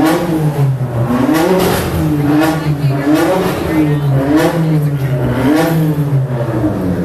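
Car engine revved in repeated short blips, its pitch rising and falling back about once a second, six times.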